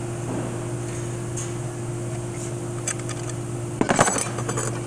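Light metallic clicks and clinks as a snap ring is pried out of an automatic transmission drum, with a quick rattling cluster of clicks near the end, over a steady hum.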